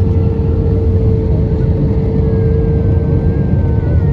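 Cabin noise of an Airbus A320 descending on approach with flaps extended: a steady, loud rumble of engines and rushing air under a constant mid-pitched hum.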